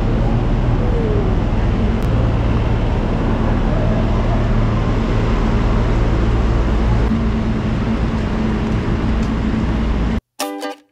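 Steady city street traffic noise, loud and dense with heavy low-end energy, picked up while walking beside the road. It cuts off suddenly near the end, and ukulele music begins.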